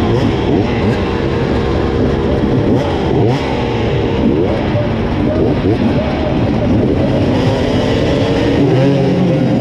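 Several enduro motorcycle engines idling together on a start grid, with riders blipping their throttles so the pitch rises and falls again and again.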